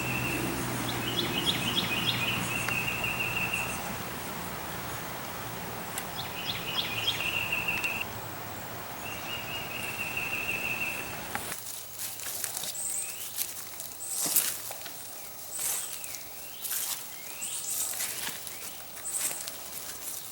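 Woodland birds calling over a steady rush of running water. Repeated short trilled calls come over the rush in the first half; about eleven seconds in, the rush drops away and sharp high chirps with quick falling-and-rising whistles take over.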